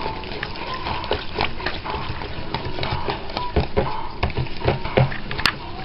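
A utensil stirring a liquid mix of melted shea butter and water-based solution in a bowl, clicking and scraping against the bowl at an irregular pace, blending it into an even cream.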